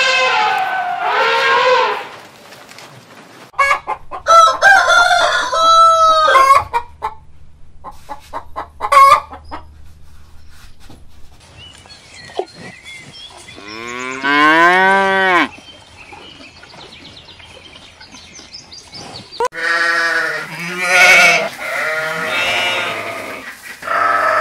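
A run of separate animal calls. An elephant's trumpet tails off in the first two seconds, then come several short calls. About 14 seconds in a cow gives one long moo that rises and falls, and near the end sheep bleat several times.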